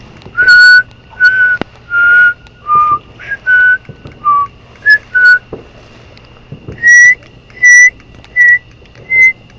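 A person whistling a tune: about nine short, clear notes at varying pitches, a break of about a second and a half, then four higher notes.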